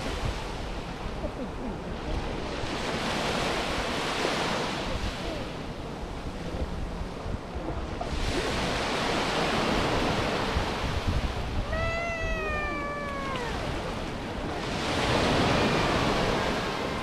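Small Mediterranean waves breaking and washing up the shore in slow, swelling surges. About twelve seconds in, a single drawn-out call, falling slightly in pitch, sounds over the surf for a second or so.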